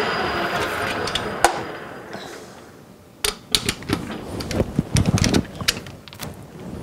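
Metal lathe spinning down to a stop, its whine falling in pitch and fading over the first three seconds. Then a quick series of sharp metal clicks and knocks as the steel part is handled in the chuck jaws.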